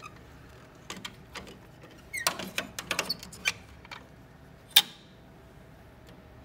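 Plastic clicks and knocks of an HP Designjet T790's printhead carriage being handled, then one sharp snap about three-quarters of the way through as the blue carriage latch is locked down.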